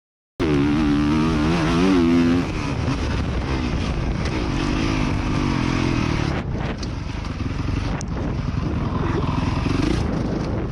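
Dirt bike engine revving up and down on a motocross track, over a steady rushing noise, heard from a camera mounted on the rider's helmet or bike. The sound drops out for a split second at the very start.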